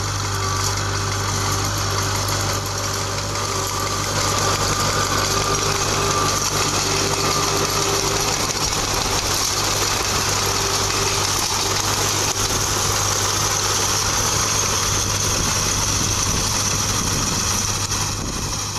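A tractor engine runs steadily while it drives a Welger small square baler picking up and baling hay. A faint whine comes and goes during the first half.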